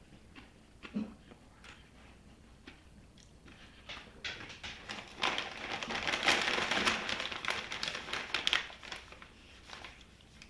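A tortilla chip bag crinkling and rustling as it is handled, a dense crackling from about halfway through that lasts some four seconds, after a few faint taps.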